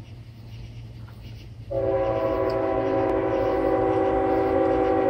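Norfolk Southern diesel locomotive's air horn sounding one long chord of several notes, starting abruptly about two seconds in and still going at the end, over a low steady hum.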